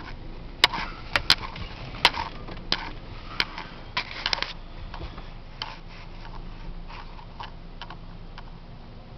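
Ford Ranger pickup rolling slowly down a ramp onto a ferry, heard from inside the cab. A low running rumble carries irregular sharp clicks and crunches, many in the first four or five seconds and fewer after.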